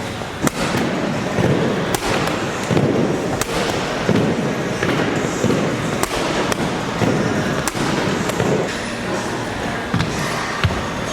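Sharp, irregular clanks and bangs, about a dozen over the stretch, over a steady din: gym weights being set down and knocked together.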